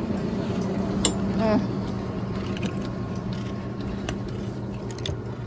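Chairlift machinery running with a steady low hum, with a few sharp clicks as the chair moves away from the loading terminal.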